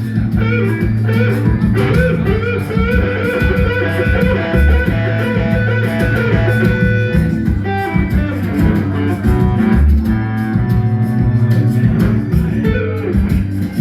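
Live band playing: guitar lines over bass guitar and drums, with held notes and a steady beat.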